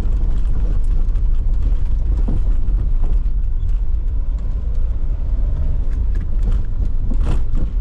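Mercedes Vito W639 van driving over an uneven road: a steady low rumble of tyres and road with irregular knocks and clacks from the front axle at each bump. The clatter comes from worn front control arms (wishbones), whose joints have play after about two years.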